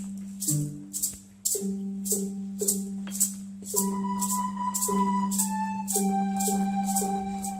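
Music: a shaker keeps a steady beat of about two strokes a second over a held low note, and a higher, sustained melody comes in about four seconds in.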